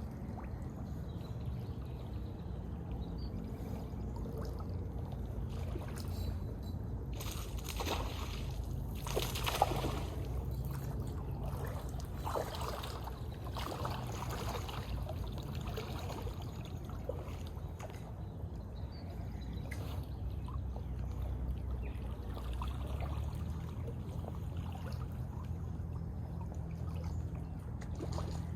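Shallow river water trickling and sloshing, with a spell of louder splashing from about eight to fourteen seconds in.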